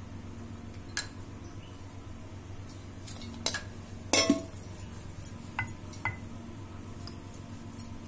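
Kitchen utensil clatter: a steel plate clinking with a short ring about four seconds in, among scattered lighter knocks and clicks of a rolling pin on a marble rolling board.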